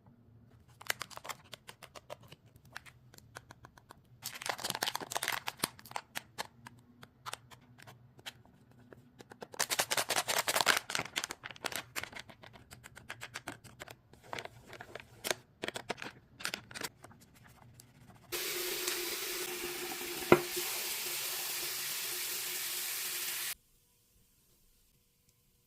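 Plastic blind-bag wrappers crinkling and rustling as they are handled and torn open, with two stretches of dense crinkling. Near the end a steady hiss-like rustle runs for about five seconds, with one sharp snap in it.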